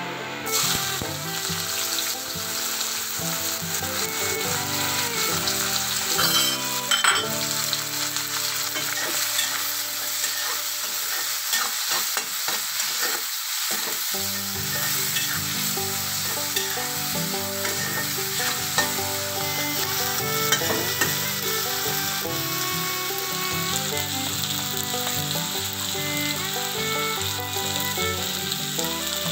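Hot oil sizzling steadily in a metal wok as whole spices and then sliced onions fry, stirred with a spatula.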